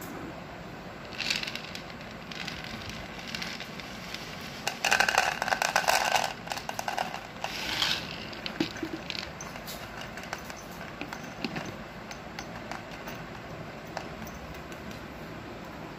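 Dry kibble poured into a plastic bowl, a loud rattle about five seconds in that lasts about a second and a half, with smaller rattles just before and after. Otherwise a cat crunching dry food, small irregular clicks.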